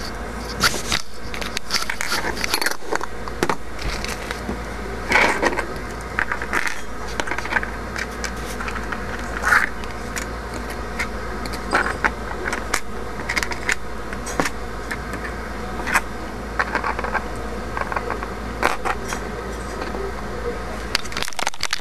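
Small LEGO plastic pieces being handled and pressed together, an irregular scatter of sharp clicks and rattles over a steady low hum.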